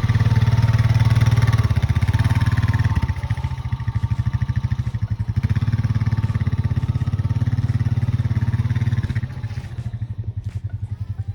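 A vehicle engine idling close by with a steady, rapid pulse. It drops in level about three seconds in and fades near the end.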